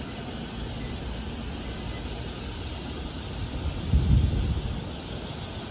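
Electric commuter train running out of the station and moving away, a steady low rumble of wheels and motors. A louder low buffeting comes about four seconds in.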